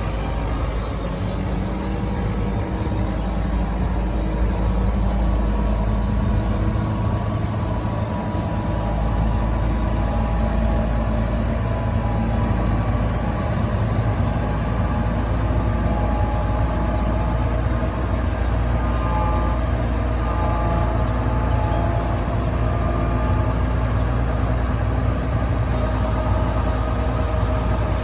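Case IH 2188 Axial-Flow combine's diesel engine running steadily at a constant speed.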